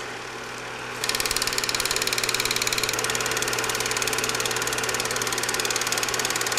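Machine-like intro sound effect: a steady low hum that turns, about a second in, into a louder, rapid, even pulsing rattle.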